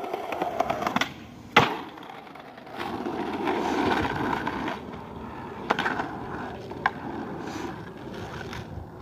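Skateboard wheels rolling over rough asphalt and concrete with a steady grinding rumble that swells a few seconds in. A single loud, sharp clack of the board hitting the ground comes about one and a half seconds in, with lighter clicks later on.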